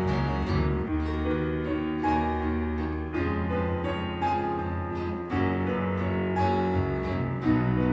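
Instrumental music led by piano, playing held chords that change every second or two.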